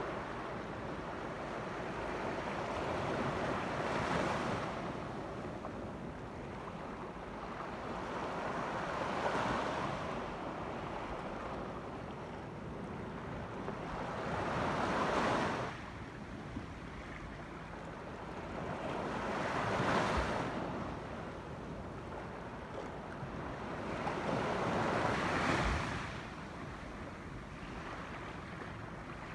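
Pacific surf washing into a small sandy, rocky cove: a steady hiss of water with five louder swells of breaking waves, about one every five seconds, some cutting off suddenly.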